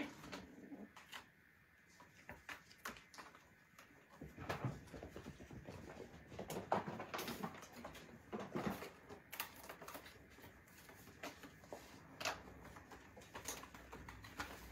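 Kittens scrambling and play-fighting on a corrugated cardboard cat scratcher: irregular scratching and scrabbling of small claws on cardboard and carpet, with light thumps.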